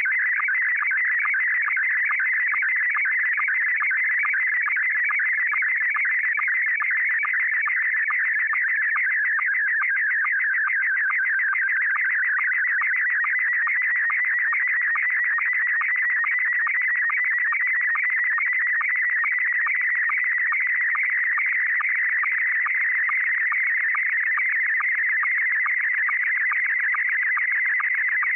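Slow-scan TV (SSTV) picture signal in Scottie 1 mode played back from a compact cassette tape: a steady, rapid, buzzy warble of audio tones at an even level. Each pass of tones carries one scan line of a still image being decoded.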